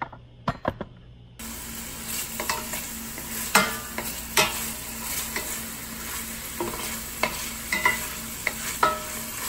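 Chopped bacon sizzling in a wide stainless steel pan as it renders its fat, with a wooden spoon stirring and scraping across the pan, clacking against it every second or so. The sizzle starts about a second and a half in, after a couple of short knocks.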